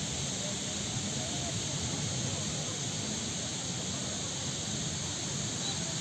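Steady outdoor background noise with a constant hiss and low rumble, and faint distant voices.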